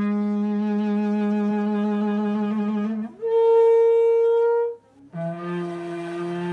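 Ecuadorian indigenous bocina, a long bamboo trumpet with a bull's-horn bell, blown in long held notes: a low note for about three seconds, then a higher, louder note for about a second and a half, reached by changing the breath, then the low note again.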